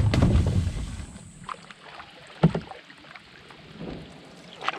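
Canoe being paddled: a loud knock against the hull at the start, with a low rumble dying away over about a second, then sharper knocks about halfway through and again near the end.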